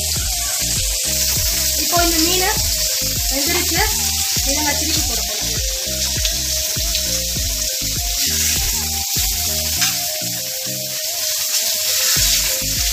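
Bombay duck fillets coated in semolina and rice flour sizzling steadily in shallow oil on a flat tava. Background music with a steady beat runs underneath.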